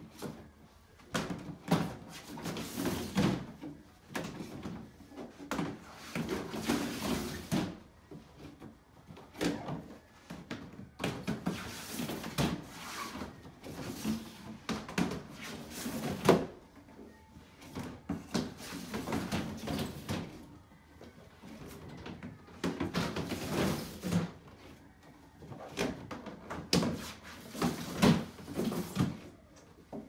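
Plastic snake tubs scraping and knocking as they are pulled off a stack and slid into the shelves of a Freedom Breeder FB1030 stainless steel reptile rack. The sounds come in irregular bursts, with a few sharp knocks, the sharpest about halfway through.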